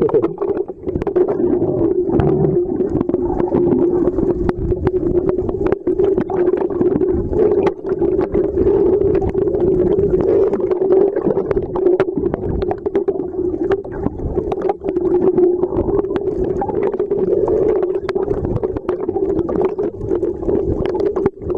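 Sea sound heard through a camera held underwater: a muffled, steady hum with low rumble, and many scattered clicks and crackles.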